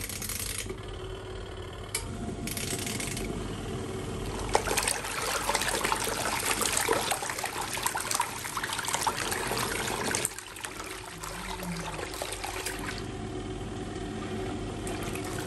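Portable folding washing machine running its wash cycle: water churns and sloshes in the tub over a low motor hum, busiest in the middle and dipping briefly about ten seconds in.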